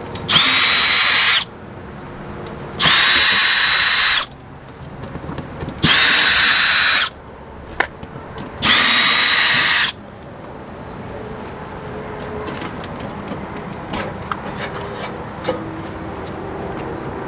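Power drill backing out screws, four short runs of about a second each with a steady high motor whine, roughly three seconds apart. After them come light clicks and knocks of handling, likely the furnace's outdoor access cover coming free.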